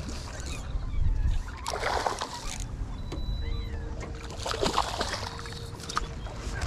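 Hooked smallmouth bass splashing at the surface beside the boat during the fight, in two bursts of splashing over a low rumble of wind and water.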